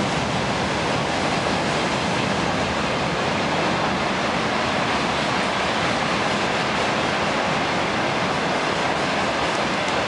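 A long freight train of tank wagons rolling past: a steady, even rush of wheel and rail noise with no let-up.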